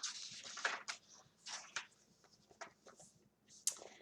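Paper rustling and soft clicks of a picture book being handled and its pages turned, in short irregular bursts that are busiest in the first second.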